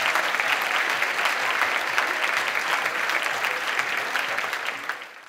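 Audience applauding with dense clapping that dies away near the end and then cuts off.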